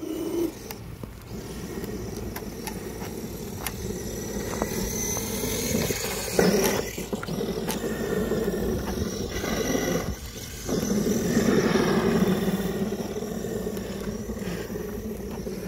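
Traxxas E-Revo electric RC monster truck driving hard through snow, its motor whining up and down with the throttle. The sound drops out briefly about ten seconds in, then picks up again louder.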